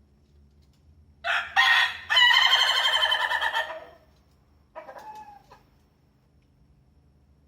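Rooster crowing: two short opening notes about a second in, then a long drawn-out final note of about two seconds. A fainter, shorter call follows about a second later.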